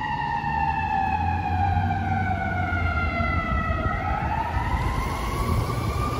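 Fire engine's siren wailing: one slow falling tone that bottoms out about four seconds in and then starts rising again.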